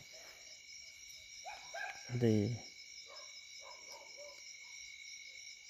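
A man's low voice speaks briefly about two seconds in, over a steady high-pitched chorus of night insects.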